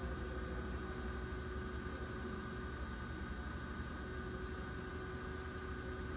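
Sunnen honing machine running under power with a steady electric hum, unchanging throughout.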